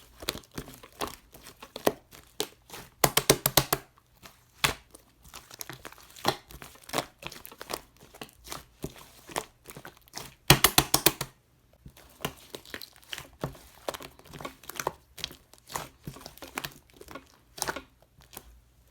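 Hands pressing and stretching crunchy slime, making irregular crackling, crinkling clicks, with two loud runs of rapid popping clicks about three seconds in and again about ten seconds in.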